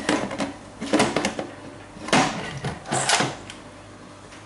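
Electric pressure cooker's lid being set on the pot and twisted into its locked position: a handful of plastic-and-metal clunks and scrapes, the loudest about two seconds in, then quieter handling.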